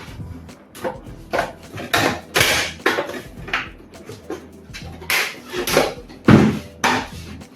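Irregular plastic clicks, knocks and short scrapes as the all-in-one computer's screen panel and back casing are handled and fitted back together, with a heavier knock about six seconds in.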